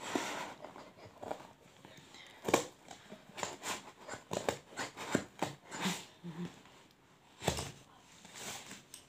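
Large scissors snipping and crunching through a taped cardboard parcel in short, irregular strokes, with the box rustling and knocking on the table. The thick, tape-wrapped cardboard is very hard to cut.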